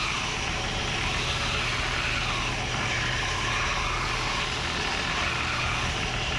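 Bench-top belt sander running steadily while a thin strip of wood is pressed flat on the moving belt: a low motor hum under a constant sanding hiss.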